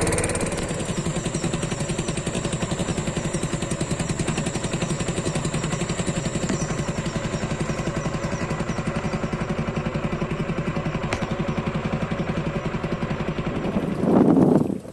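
Small boat's engine running steadily with an even beat; near the end it swells briefly, then cuts off suddenly.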